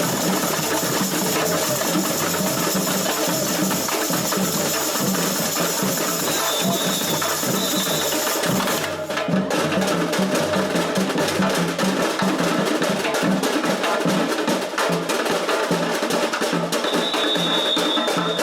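Samba percussion section (bateria) playing a fast, dense drum rhythm. About nine seconds in there is a brief break, after which the drum strikes come through sharper.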